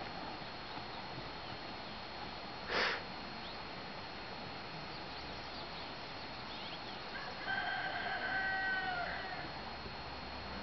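A rooster crowing once near the end, a held call of about a second and a half. A brief rush of noise about three seconds in, over steady outdoor background hiss.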